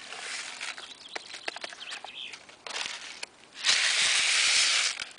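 Packet rustling and crinkling in the hand, then, near the end, a loud hiss lasting just over a second as dry seasoned bulgur wheat pours from the packet into a pan of water.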